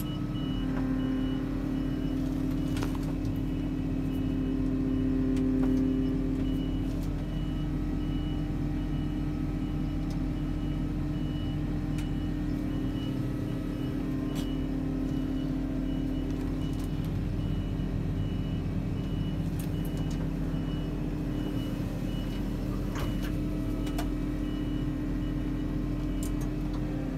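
Hardi Alpha EVO 2 self-propelled sprayer's engine running steadily, heard from inside the closed cab. A thin, high warning beeper repeats at an even rate throughout. The hum is stronger for the first six or seven seconds while the cab's access stairs fold up.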